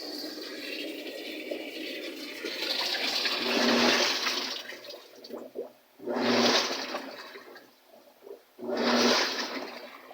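Panasonic top-load washing machine starting its wash agitation: after a steady rush of water, the pulsator drives the load in strokes about every two and a half to three seconds, each a motor hum with a surge of sloshing water. The repaired machine is filling and washing normally.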